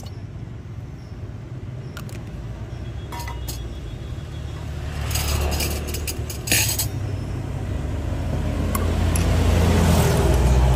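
Light clinks and a short clatter of a spoon and a squeeze bottle against a glass measuring jug as coffee and milk are mixed. Under them, the low rumble of a passing motor vehicle swells to loudest near the end.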